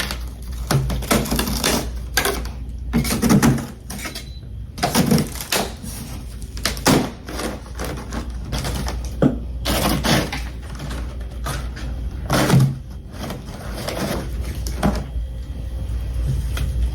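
Close-up crunching and chewing of freezer frost and ice. The bites come irregularly, with short pauses between them, over a steady low hum.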